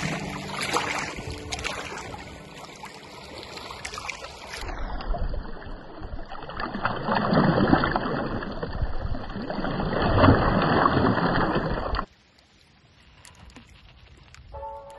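Waves washing in and splashing against shoreline rocks, a steady rush of water with two louder surges as swells break. About twelve seconds in, it cuts to much quieter, gentle lapping in calm shallows.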